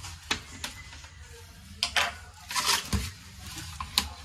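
Clicks, taps and scraping of a plastic laptop case being worked on with a screwdriver and handled, with a dull thump about three seconds in as the laptop is turned over and set down.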